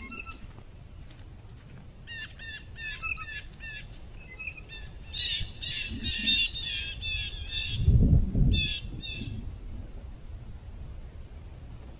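A bird calling outdoors in runs of short, quick, repeated chirps that come and go over several seconds. About eight seconds in there is a brief low rumble, the loudest sound.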